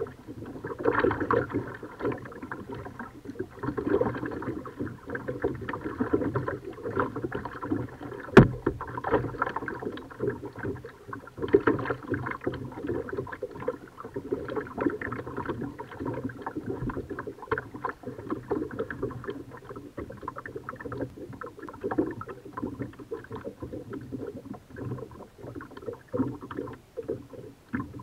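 Kayak paddling: paddle blades splashing and water trickling and lapping close by, swelling every three to four seconds with the strokes. One sharp knock about eight seconds in.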